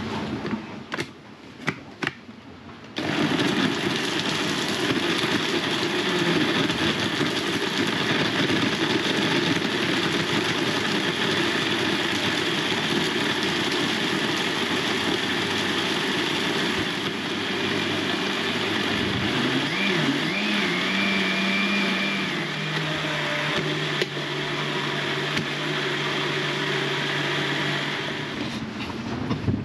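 Countertop blender running, starting about three seconds in and stopping near the end, as it blends fruit into a smoothie. Its motor note wavers and settles lower a little past two-thirds of the way through.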